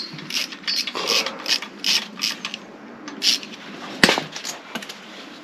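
Hand ratchet with an 8 mm socket backing out the screws of a motorcycle engine's alternator cover: short, irregular spells of ratchet clicking, then one sharp knock about four seconds in.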